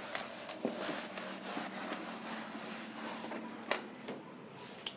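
Cloth duster rubbing back and forth across a chalkboard, wiping it clean: a steady scrubbing hiss for about three and a half seconds, followed by two short knocks.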